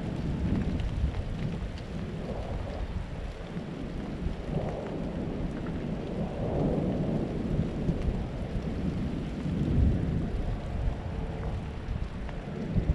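Wind buffeting the microphone outdoors, a low rumble that swells and eases in gusts.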